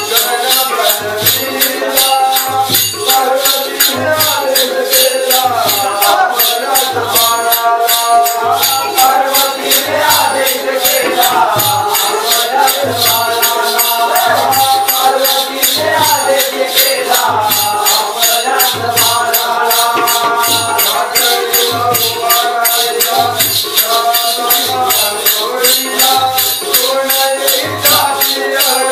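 Live Konkan Shakti-Tura (Jakhadi) folk music: voices singing a melodic line over a steady low drum beat and a fast, continuous jingling of small cymbals or bells.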